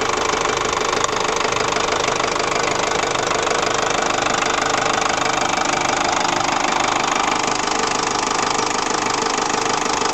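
Ford Transit 2.5 diesel engine idling steadily, warmed up. There is a single light click about a second in.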